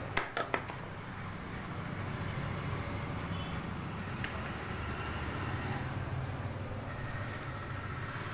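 Three quick clicks as plastic PVC pipe fittings are handled and set down, then a steady low rumble.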